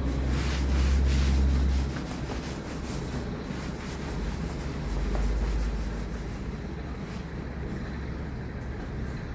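Power sander running against a car's painted body panel, sanding down flaking paint ahead of a repaint. Its low hum is loudest for the first two seconds, eases, then swells again about five seconds in.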